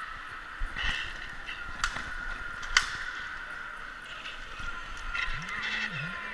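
Laser tag gear in play: faint steady electronic tones, three sharp clicks within the first three seconds, and a low electronic tone that slides up in pitch near the end and holds.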